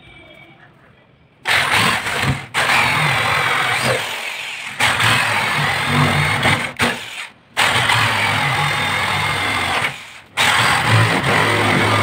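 Corded electric drill with a spade bit boring into the edge of a wooden door to cut the pocket for the lock. The motor runs in about six spells of one to three seconds with short stops between them, starting about a second and a half in.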